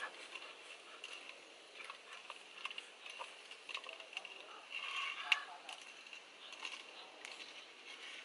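Clams clicking and knocking against one another and the metal pot as they are handled by hand, in irregular small clicks with a denser clatter about five seconds in. A steady faint high hum runs behind.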